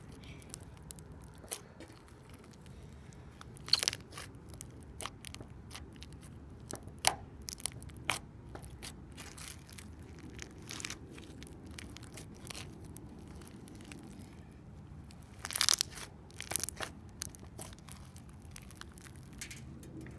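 Foam bead slime squished and worked by hand, making irregular crunchy pops and clicks, with a few louder clusters of popping, the loudest about two thirds of the way through.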